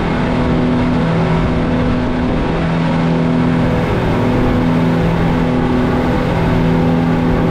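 Boat engine running steadily at speed, a constant drone over the rush of water and wind.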